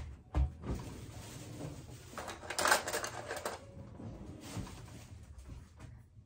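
Kitchen handling noises: a sharp knock just after the start, then a couple of seconds of clattering and rustling, loudest a little past the middle, fading to lighter handling sounds.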